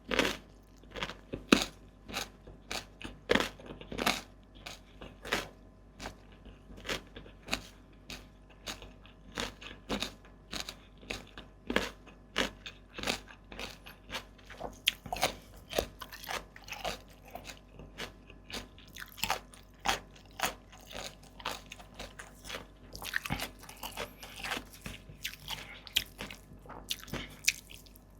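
Close-miked chewing: a person eating with steady, crisp crunches at roughly two a second, a little denser near the end.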